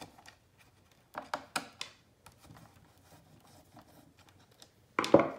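Hard plastic parts of a robot vacuum being worked loose from the plastic chassis by hand: a few sharp clicks a little over a second in, faint scraping, and a louder clatter near the end.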